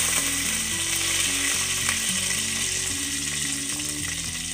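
Hot oil sizzling steadily in a pot, with a whole-spice tempering and tomato halves frying in it. A soft, low melody of background music runs underneath.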